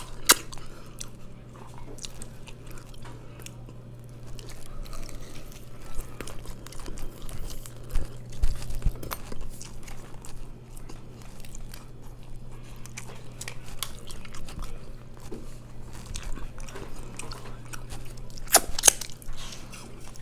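A person chewing and biting food close to the microphone, with many small mouth clicks. There is a sharp click just after the start and another near the end, over a steady low hum.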